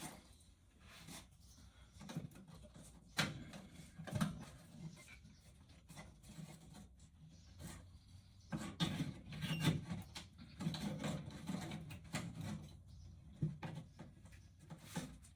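Scattered light knocks, clicks and rubbing as wooden camper wall boards and trim pieces are handled and pulled loose, busiest in the second half.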